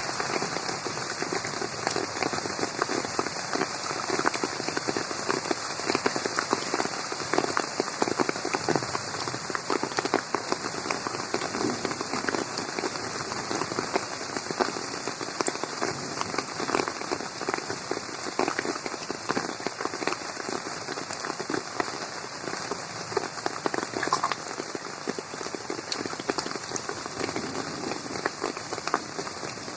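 Steady rain falling on a garden pond, a dense, even wash of countless small drop impacts.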